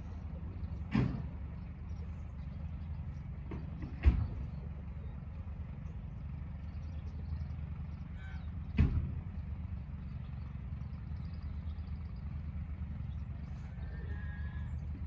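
Three sudden thumps, spaced a few seconds apart, over a steady low rumble.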